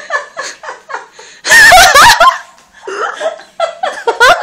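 People laughing in short chuckling bursts, with one loud burst of laughter about a second and a half in.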